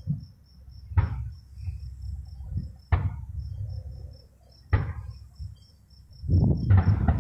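Fireworks display: three single bangs with a rumbling tail, about two seconds apart, then a rapid run of bangs and rumble starting near the end. Crickets chirp steadily and high in the background.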